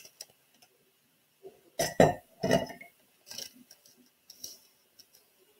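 Hands laying a sheet of patty paper on a worksheet and flattening it on the desk, giving a handful of short knocks and clinks spread over a few seconds.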